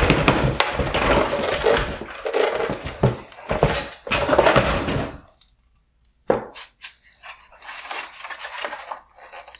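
Plastic headlight lens and housing being handled during disassembly: a busy run of clicks, knocks and scrapes, a short silent pause about five seconds in, one sharp click, then lighter clattering.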